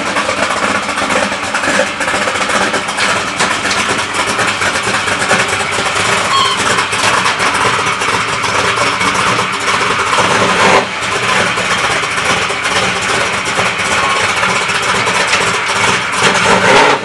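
Chevrolet El Camino's engine running, loud and steady.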